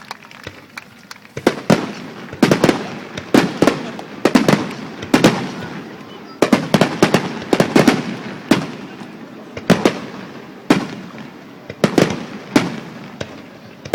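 Fireworks bursting in quick succession: sharp bangs with echoing tails, coming in clusters from about a second and a half in.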